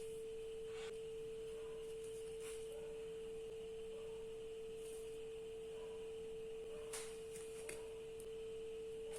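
A steady, single-pitched mid-range hum, like a pure tone, with a few faint clicks and taps over it.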